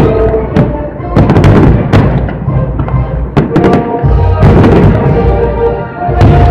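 Fireworks bursting in a rapid, irregular series of bangs over music with sustained tones.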